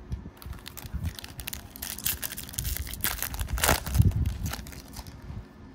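Foil wrapper of a Topps baseball card pack crinkling and tearing as it is ripped open by hand: a run of sharp crackles, with the loudest rip about four seconds in.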